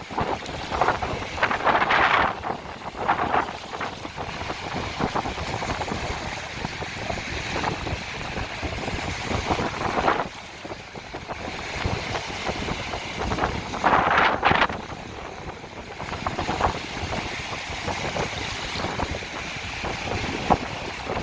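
Small Baltic Sea waves washing onto the shore in a continuous hiss, with louder surges about two seconds in and again near fourteen seconds. Wind buffets the microphone throughout.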